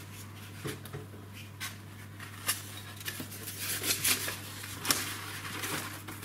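Light clicks and knocks of eggs being handled and lifted out of a plastic egg tray, scattered irregularly, over a low steady hum.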